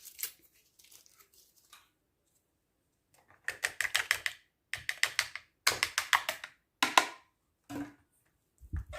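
Hand whisk beating cake batter of eggs, sugar, oil and yogurt in a bowl: the wires click rapidly against the bowl in several bursts starting about three and a half seconds in. A low thump comes near the end.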